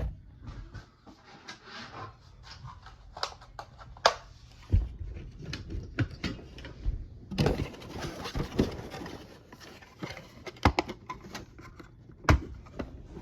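Handling noises from a plastic smoke detector: a string of clicks and knocks with a stretch of rustling, as the housing is opened to show the circuit board inside.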